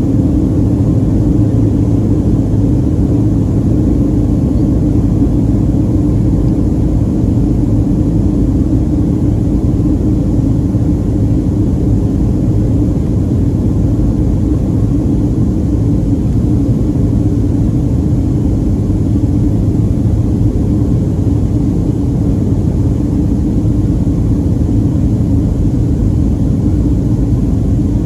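Cabin noise of a Boeing 737-400 in flight, heard over the wing: a loud, steady low rumble of airflow and its CFM56 jet engines, with a constant hum underneath.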